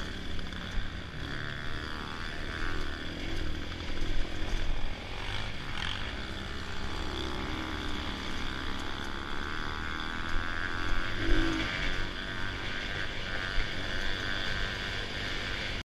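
Dirt bike engine running while it is ridden over a rough trail, its pitch rising and falling with the throttle, with scattered knocks from the bumps. The sound cuts off abruptly near the end.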